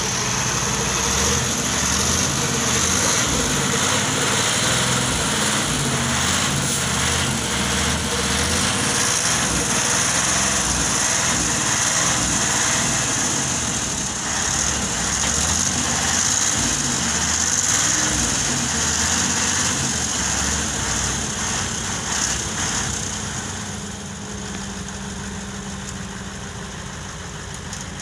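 Heavy diesel engines running steadily: a dump truck driving through mud close by, with a Hitachi crawler excavator working. The engine sound grows quieter about 24 seconds in.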